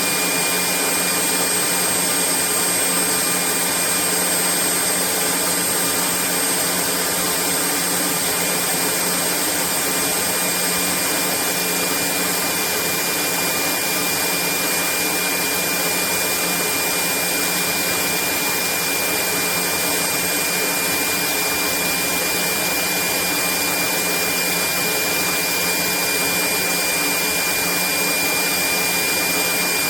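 Vistefly V15s Max cordless stick vacuum cleaner running steadily: an even rush of air with a steady high-pitched whine from its motor.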